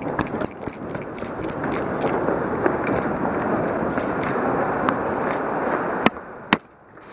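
Rubbing and scraping of a body-worn camera against the player's gear as he moves at a run, with scattered sharp clicks of airsoft guns firing in the arena. Two louder snaps come about six seconds in, then the rustling drops away.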